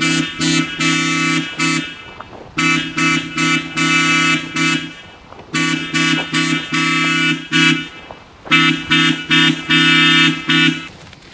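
Car horn honking in a repeating pattern: a few quick toots and a longer blast, four rounds about three seconds apart. The sound is run through the heavy pitch-shifting 'G Major' edit effect.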